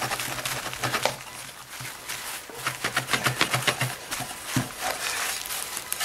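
Fine steel wool loaded with metal polish scrubbed back and forth by hand over the aluminium motor hood of a Kirby vacuum, a quick run of scratchy rubbing strokes, about seven or eight a second, at its busiest in the middle.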